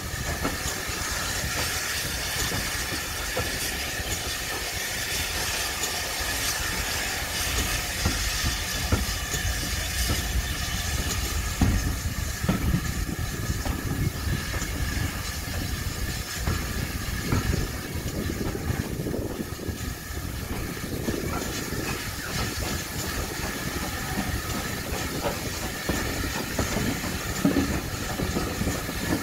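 Train rolling slowly out of a station, heard from an open carriage window behind GWR Manor class steam locomotive 7820 Dinmore Manor. Steam hisses steadily, fading through the middle, over a low running rumble and the clatter of wheels over rail joints and pointwork.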